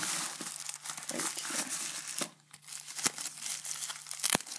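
Plastic wrappers of individually wrapped menstrual pads crinkling and rustling as hands dig through a tightly packed box of them, with a short lull about two seconds in and a sharp tap near the end.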